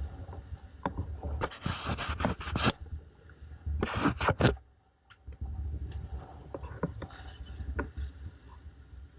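Sailboat under way in rough seas: waves rushing and splashing along the hull, with a steady low wind rumble on the microphone. Two louder rushes of water stand out, about two and four seconds in.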